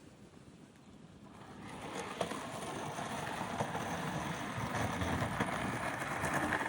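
Skateboard wheels rolling fast down concrete. The rumble grows steadily louder from about a second in as the board comes closer, with a few sharp clicks over seams or rough spots.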